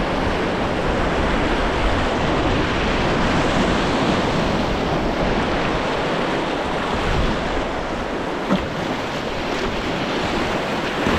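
Steady rushing of river white water, with wind buffeting the microphone. A single short knock comes about eight and a half seconds in.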